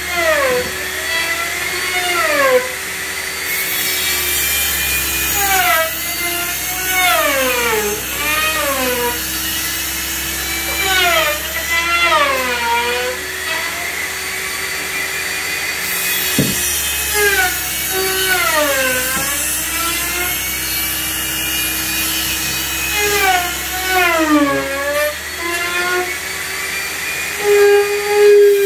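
Handheld trim router cutting plywood cabinet edges. Its motor whine keeps dropping in pitch and climbing back as the bit loads up in the cut and frees again. There is one sharp click about halfway through.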